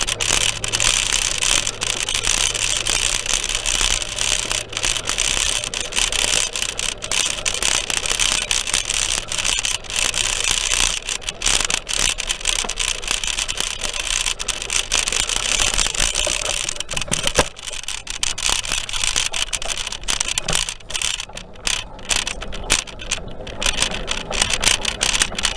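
Ride noise picked up by a camera mounted on a moving bicycle: a steady rush of wind and road noise with constant small rattles and knocks from the bike and mount.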